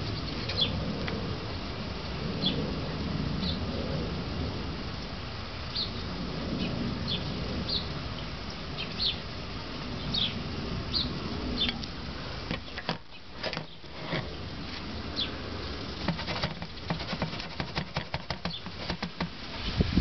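Low rumble of wind on the microphone with short, high chirps scattered every second or so. From a little past halfway, a growing run of sharp clicks and knocks from the plastic tray and basket being handled.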